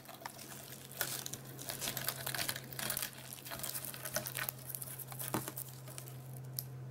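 Hercules beetle and giraffe stag beetle scuffling on corrugated cardboard: irregular scratching and crinkling as their clawed legs grip and scrape the cardboard, with a few sharper clicks. A steady low hum runs underneath.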